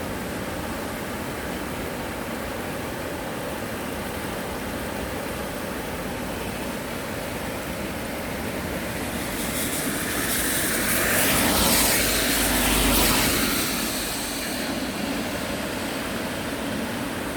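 Steady rush of a mountain stream. From about nine seconds in, a vehicle passes by: it swells to its loudest about twelve seconds in, drops in pitch as it goes past, then fades out.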